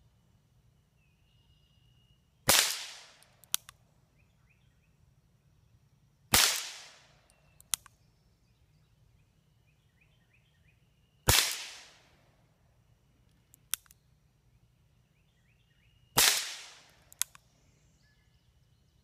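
Four shots from an RG 14 .22 LR revolver, fired a few seconds apart, each a sharp crack that dies away quickly. After each shot, a second or two later, comes a small sharp click as the hammer is cocked back for the next single-action shot.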